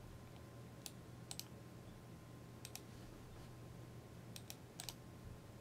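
Faint computer mouse clicks, mostly in quick pairs, a handful of times across a few seconds, over a low steady hum.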